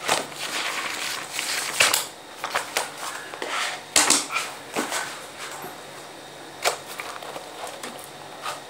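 Spiral notebooks handled on a table: scattered paper rustles and light knocks, the sharpest about two, four and seven seconds in.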